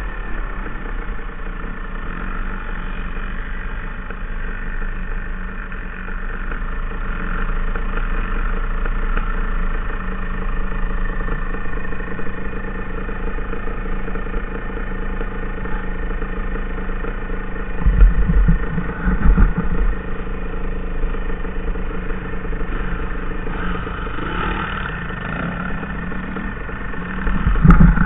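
Small off-road engine idling steadily, with two bursts of deep low rumble, one about two-thirds of the way in and one near the end.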